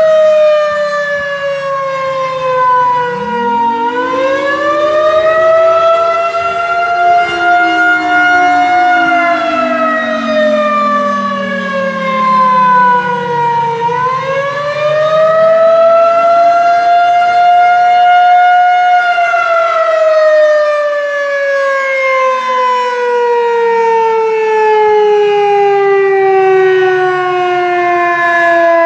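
Outdoor tornado warning siren sounding for its monthly test, very loud. Its wail slides down in pitch and swoops back up twice, then falls slowly and steadily near the end.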